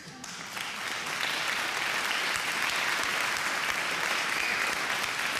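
An audience clapping and applauding. The applause swells in within the first second and then holds steady.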